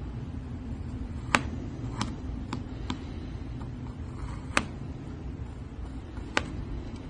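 Slime being squeezed and handled, giving off about six sharp clicking pops at uneven intervals over a steady low hum.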